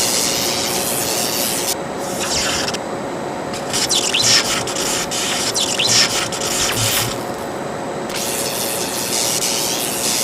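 A continuous hissing, rushing noise with a faint steady hum beneath it, swelling louder twice near the middle.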